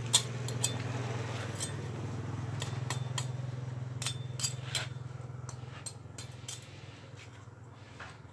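Scattered clicks and clinks of metal utensils handling and tapping grilled pork, over a low steady hum that fades away in the second half.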